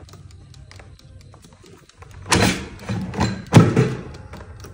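Air fryer basket drawer pushed home: a scraping slide about two seconds in, then a sharp clunk as it seats, the loudest sound, with a few lighter knocks.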